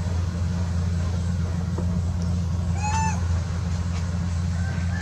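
A young macaque gives a single short, arching squeal about three seconds in, over a steady low hum.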